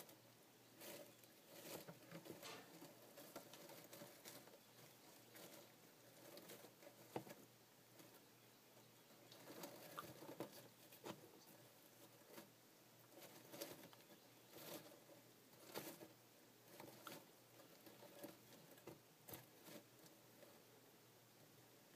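Faint, irregular rustling and clicking of wood-chip bedding as a Florida box turtle moves about on it.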